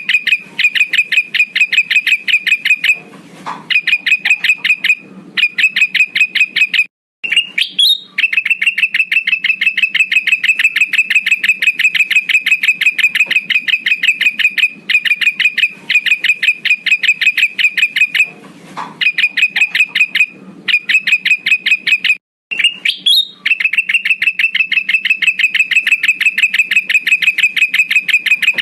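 Male kutilang emas bulbul calling: long runs of one rapid, evenly repeated high note, several a second, broken by short pauses. The same stretch of call repeats as a loop, as used for a lure to draw in rival males.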